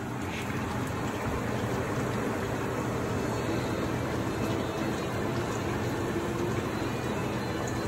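Meat frying in its juices in a black pot on a gas burner, with a steady sizzle and bubbling.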